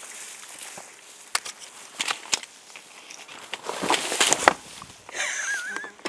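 Footsteps crunching through dry bracken, twigs and leaf litter, with sticks snapping, and a louder crash of brush about four seconds in as the walker slips while crossing a log. Near the end a brief wavering whistle sounds.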